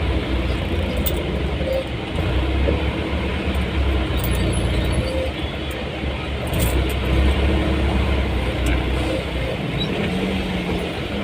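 A road vehicle running along: a steady low engine rumble mixed with road noise.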